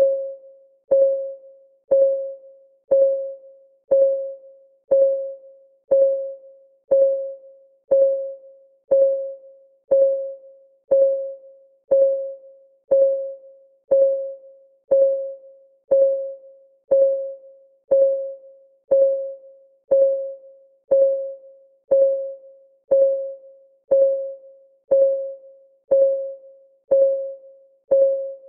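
Countdown timer's clock ticking sound: one short pitched tick every second, each ringing briefly and fading before the next.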